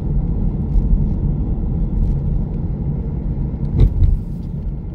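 Car driving along a road: a steady low rumble of tyres and engine, with one brief knock a little before four seconds in.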